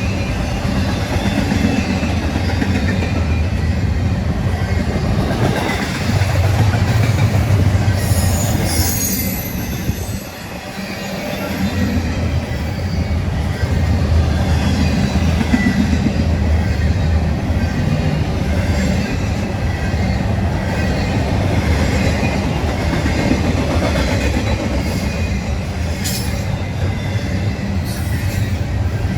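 Freight train cars rolling past, steel wheels on rail with a steady low rumble and intermittent high wheel squeal. The sound dips briefly about ten seconds in.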